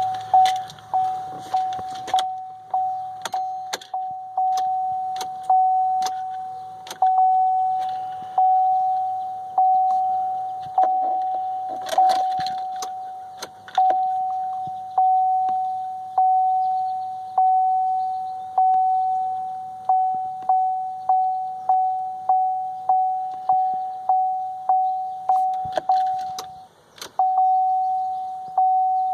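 A 2016 Chevy Silverado's warning chime dinging over and over on one steady pitch, each ding fading before the next, about one a second. It pauses briefly near the end. A few sharp clicks are mixed in, the busiest spell about midway.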